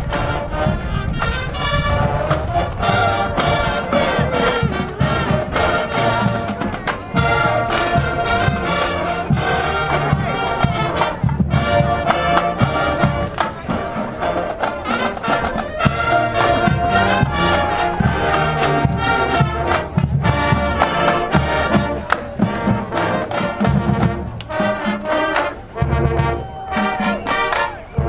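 A marching band plays: brass with trombones and trumpets, over the steady beat of a drumline.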